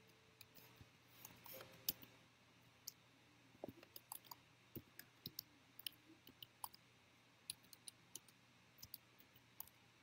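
Faint, irregular light clicks and taps, a few in each second, over near silence and a faint low hum.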